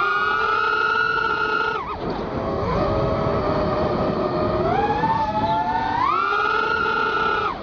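Racing quadcopter's brushless motors whining under throttle: the pitch is held high, drops sharply about two seconds in, climbs back up in steps through the middle, then holds high again before falling off at the end.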